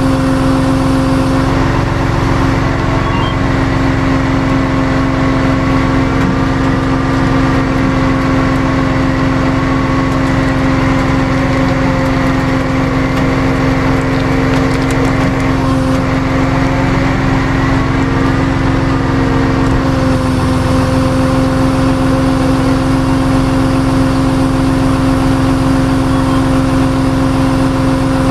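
Tow truck's engine running steadily at a constant speed, with an even drone and no revving.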